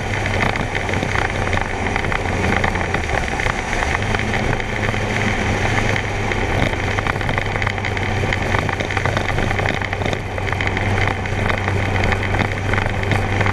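Kawasaki Concours 14 motorcycle's inline-four engine running at a steady cruising speed, a low steady hum under heavy wind and road rush on the microphone.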